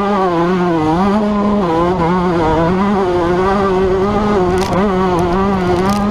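Yamaha YZ125 single-cylinder two-stroke motocross engine running hard on the track, its revs held high and wavering up and down as the throttle is worked.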